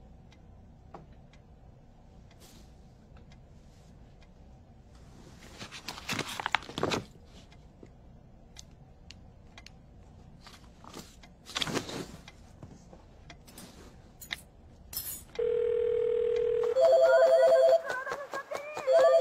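Mobile phone on a call: a steady single tone for just over a second, then the phone ringing in rapid pulses of two alternating electronic tones near the end. Earlier there is only faint hiss with two short noisy rushes, around six and twelve seconds in.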